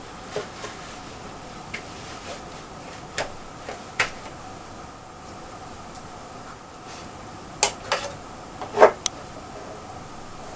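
Scattered clicks and knocks of an ABS plastic Iron Man Mark 7 helmet being put on and handled, with a few louder knocks about three quarters of the way through.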